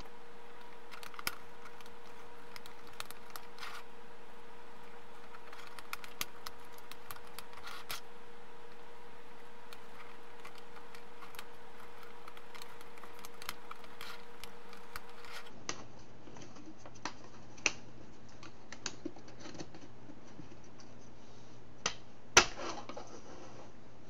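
Scattered light clicks and taps of wooden puzzle frames and stretched rubber bands being handled and seated in their notches, with a sharper snap about 22 seconds in. A faint steady hum runs under the first two thirds and then stops.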